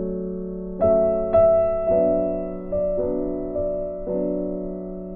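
Background music: piano-like keyboard chords struck about once a second, each ringing and fading.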